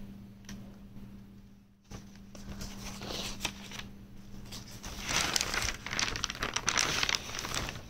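Paper notes being handled close to the microphone, rustling and crinkling: faint at first, then much louder and busier from about five seconds in.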